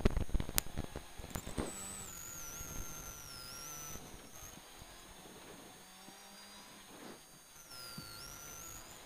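Rally car intercom line noise: crackling clicks in the first second and a half, then a faint hum with thin, wavering whistle tones of interference, twice.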